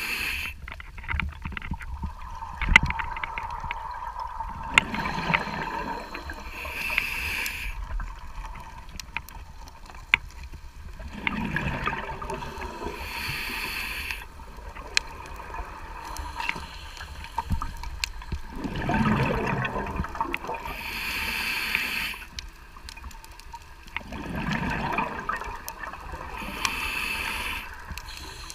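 Scuba diver breathing through a regulator underwater: a hiss on each inhale, then a rumbling burst of exhaled bubbles, about four breaths, one every six to seven seconds. Scattered faint sharp clicks sound through it.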